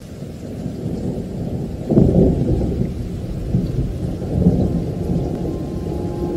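Thunder rumbling in a rainstorm, with a loud clap about two seconds in and further rolls of thunder after it.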